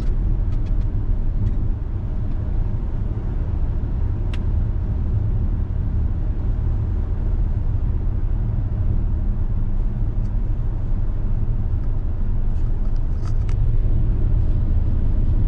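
Steady low rumble of an Audi Q7 being driven, road and engine noise heard from inside the cabin, with a few faint clicks.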